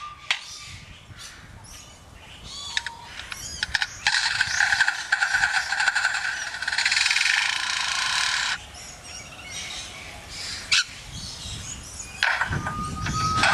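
Lyrebird mimicking construction-site noise: a few clicks and swooping whistles, then a harsh, steady buzz for about four seconds like a power saw, which cuts off abruptly. After a quieter stretch there is one sharp click, and near the end another buzzing burst.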